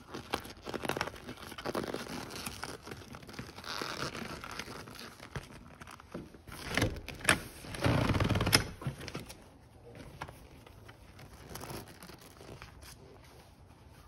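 Handling noise from a faux-leather seat cover being fitted onto a truck seat backrest: rustling, crinkling and scraping of the cover material, with ripping and pressing of its Velcro tabs. A louder spell of rubbing and bumps comes past the middle.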